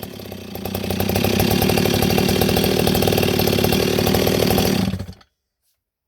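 Stihl 026 two-stroke chainsaw with an aftermarket muffler gutted of its baffles, idling, then revved up within the first second and held at steady high revs before cutting off abruptly about five seconds in.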